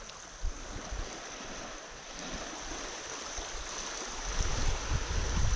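Small waves lapping and washing close to the microphone, with a steady hiss. Irregular low buffeting grows louder about four seconds in.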